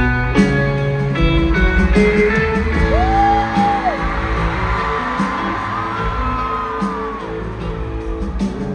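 Live rock band playing a slow song through an arena PA, led by electric guitar chords, with a held tone that bends up and down about three seconds in.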